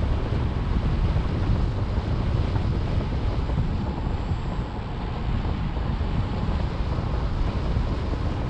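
Wind rushing over the camera microphone during paraglider flight: a steady, low, rumbling buffet.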